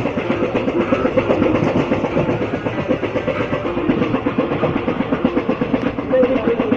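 Amaravati Express passenger train running along the track: a steady, continuous rattle of wheels over the rails with a constant hum of the moving train.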